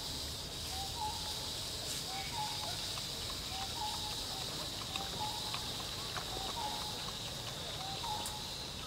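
A bird repeating a short two-note call about once a second, over a steady high-pitched insect drone.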